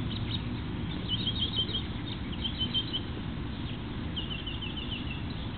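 A small bird chirping in short, rapid high trills, three times, over a steady low outdoor rumble.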